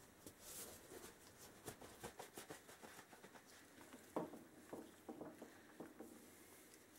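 Faint handling noise: gloved hands rustling and clicking against a benchtop parts washer as its flexible metal spout is bent into position over the tub, with one sharper tap about four seconds in.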